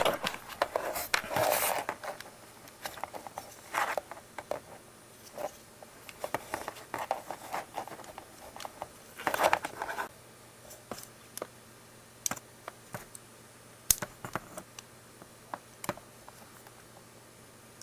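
Handling noises of small parts being worked by hand: rustling and scraping with scattered sharp clicks and taps, busiest at the start and about nine to ten seconds in, with only occasional ticks later.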